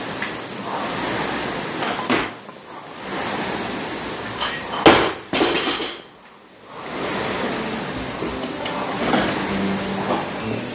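Air rowing machine's fan flywheel whooshing in surges, swelling with each drive stroke and fading on the recovery, with a sharp knock about five seconds in.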